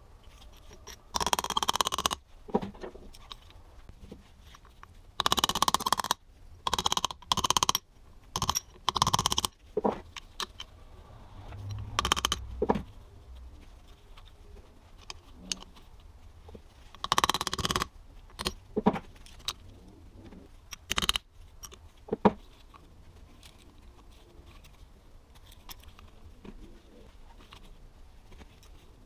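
Metal parts of a greasy CV joint being handled and pulled apart: a series of short metallic scraping and clinking sounds, each up to about a second long, bunched in the first half and tailing off to a few isolated ones.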